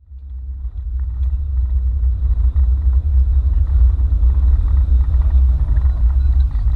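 V8 burnout car's engine idling with a deep, steady rumble, heard from inside the car's cabin; it fades in over the first second without revving.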